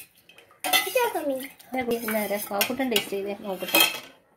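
A steel spoon stirring and scraping inside a stainless-steel mug, clinking against the sides with sliding, squealing metal tones. It starts about half a second in and stops just before the end.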